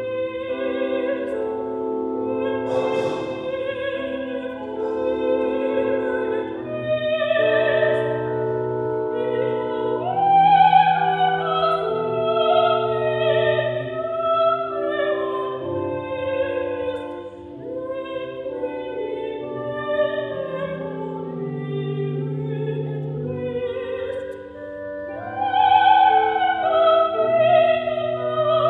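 A soprano soloist and a mixed choir singing classical sacred music in parts, in long sustained phrases.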